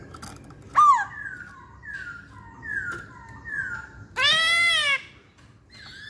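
A caged black-throated laughingthrush singing: a sharp whistled note, then a run of four falling whistles, then one loud, harsh, drawn-out call near the end.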